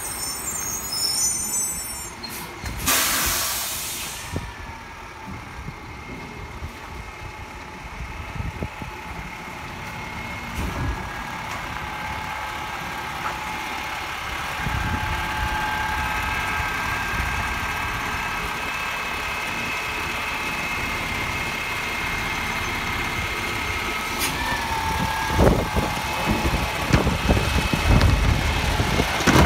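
Peterbilt 520 garbage truck's diesel engine running, with a short air-brake hiss about three seconds in. About halfway through the engine revs up and holds with a steady whine as the automated side-loader arm works, and near the end there is a run of clanks and knocks from the arm's grabber.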